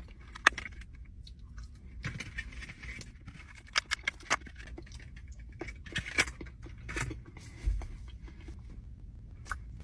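A person chewing gummy candy close to the microphone: scattered small clicks and smacks from the mouth at an uneven pace.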